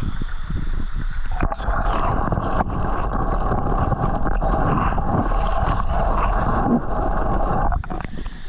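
Steady rushing, gurgling water noise picked up by a camera dipped under the surface of shallow floodwater over grass, with a few soft knocks.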